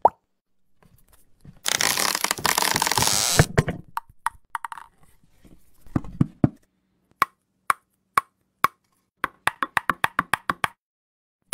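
A string of cartoon sound effects: a loud rush of noise lasting about two seconds, a low thud, then a run of short plopping blips that come faster and faster before stopping.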